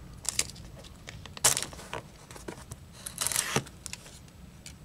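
Razor blade of a handheld laminate trimmer slicing the overhanging veneer off a wood strip: two short scraping, tearing strokes, about a second and a half and about three seconds in, with a few light clicks of the tool before them.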